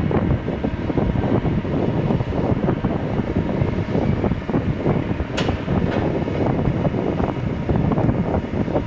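Kobelco 220 hydraulic excavator's diesel engine running steadily under load, with irregular knocks and scrapes throughout and a sharper click about five and a half seconds in.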